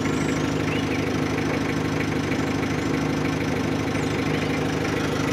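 Vehicle engine running steadily at idle or a slow, even pace, a low hum that holds one pitch throughout.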